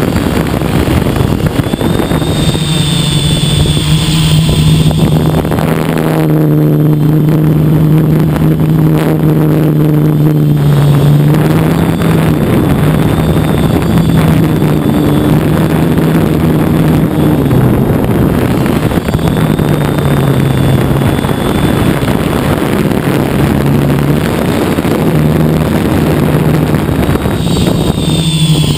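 Hexacopter's electric motors and propellers heard from its onboard camera: a loud steady hum whose pitch steps up and down as the flight goes on, with a faint high whine above it.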